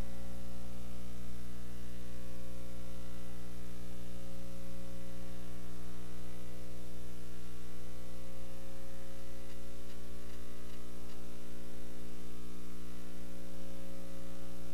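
Steady mains hum with a layer of static hiss: the received audio of an HF transceiver being tuned slowly across the 40-metre CW band.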